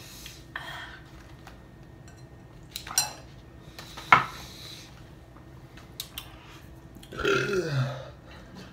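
Soft handling noises and a sharp clink of tableware about four seconds in, then near the end a low, drawn-out burp lasting under a second.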